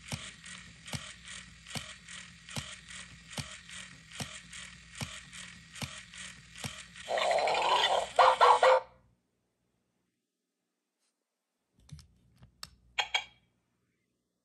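Hasbro I-Dog Amp'd robotic toy dog's mechanism running, with regular clicks about two or three a second over a steady whir as its ears and head move. About seven seconds in comes a loud electronic dog sound from its speaker. After a pause, a few quick mechanical clicks near the end.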